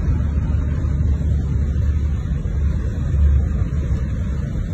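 A Mitsubishi Xpander driving through floodwater, heard from inside the cabin: a steady low rumble with the wash and spray of water against the car's side.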